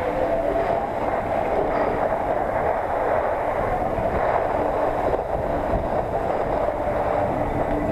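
Skis sliding and scraping over the snow during a downhill run, a steady rushing, rumbling noise picked up by a head-mounted SJ4000 action camera.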